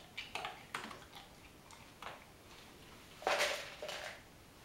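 A dog crunching a small treat, with several quick clicks in the first second or so. About three seconds in comes a louder, longer rustle of someone moving on a blanket.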